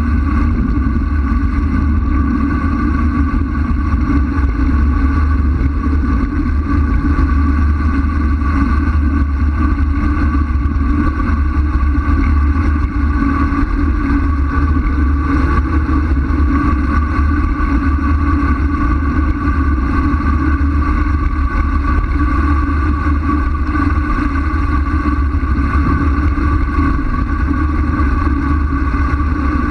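Wind rushing over a bike-mounted camera's microphone on a fast road-bike descent: a loud, unbroken rumble with a steady whirring tone above it.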